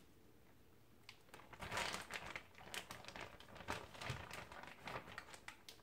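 Zip-top plastic bag crinkling in irregular bursts as a cooked sous vide chicken breast is pulled out of it, starting about a second in.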